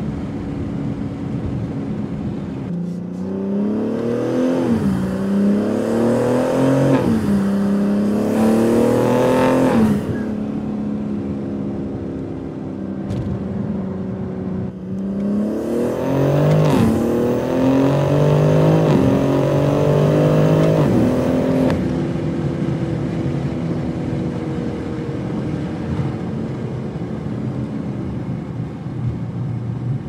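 BMW G80 M3's twin-turbo straight-six, with the Fi Exhaust valvetronic catback's valves open, heard from inside the cabin under two hard accelerations: the engine note climbs, falls sharply at each quick upshift and climbs again, and each run ends with a sudden drop as the throttle closes. Between and after the pulls the engine runs on steadily at lower revs.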